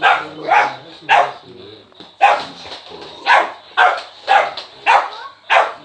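Boxer puppy barking repeatedly, sharp high barks about two a second with a short pause early on.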